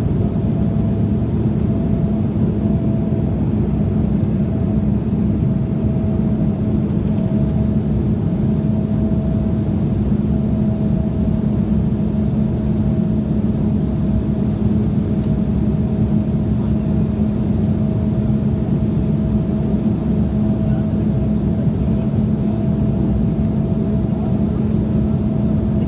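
Steady in-flight cabin noise of an Embraer 175 heard from a window seat: a rush of air and the GE CF34 turbofan engines, with a steady low hum and a fainter, higher steady tone running over it.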